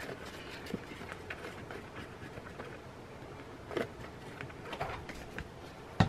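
Quiet handling sounds as a plastic bottle of Fabri-Tac fabric glue is squeezed onto a paper card: a few soft ticks and rustles of the card and bottle in the hands.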